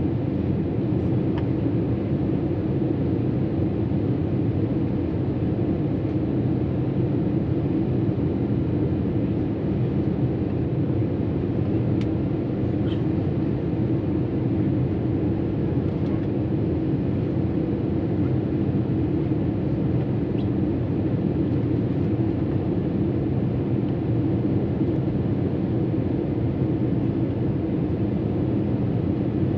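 Steady cabin noise of an Airbus A320 on approach: an even rumble of engines and airflow heard from a window seat over the wing, with a couple of faint clicks about halfway through.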